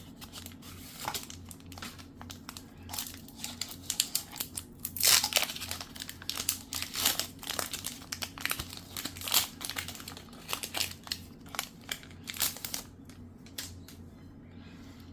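Foil wrapper of a Pokémon TCG Destined Rivals booster pack crinkling and tearing as it is opened, in irregular sharp crackles that die away near the end.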